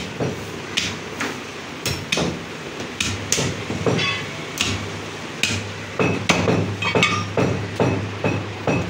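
Heavy butcher's cleaver chopping goat ribs into pieces on a wooden chopping block. It makes a string of sharp chops through meat and bone, irregular, about one to two a second.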